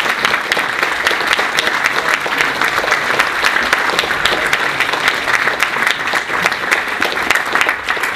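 Audience applauding, many hands clapping in a steady, dense patter.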